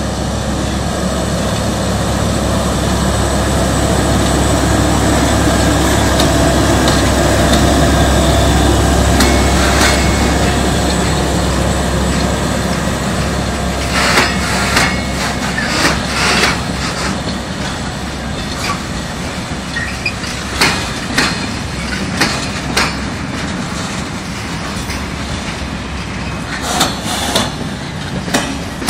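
Diesel shunting locomotive's engine running as it passes, loudest about eight seconds in. Then a train of covered freight wagons rolling by, its wheels knocking sharply over the rail joints.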